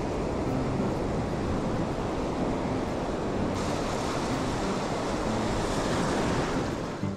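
Ocean surf breaking and washing up the sand, with wind buffeting the microphone. From about halfway the surf's hiss grows brighter for some three seconds.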